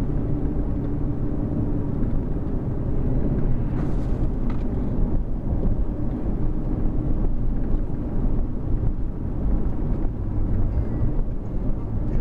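Cabin noise of a car driving along: a steady low rumble.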